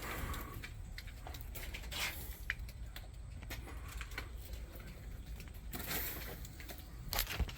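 Faint scattered scuffs and clicks of footsteps and handling over a steady low rumble.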